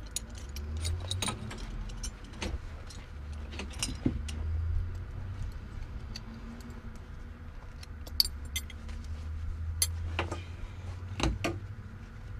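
Metal buckles and fittings of a cockpit seat harness clicking and clinking as it is unfastened and the straps are pulled free, over a low rumble.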